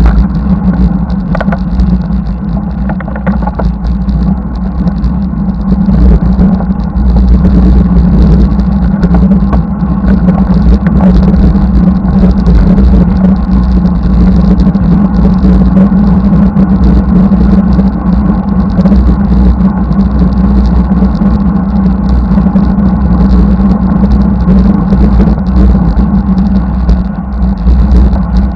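Wind buffeting the microphone of a camera mounted on a moving bicycle: a loud, steady, deep rumble.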